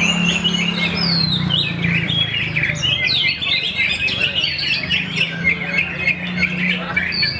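Oriental magpie-robin singing a fast, dense run of whistles, slurred glides and chirps, over many other competing songbirds singing at once. A low steady hum lies underneath.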